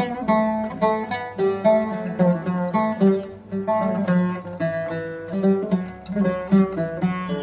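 Music played on a plucked string instrument: a melody of quick picked notes over repeated low notes.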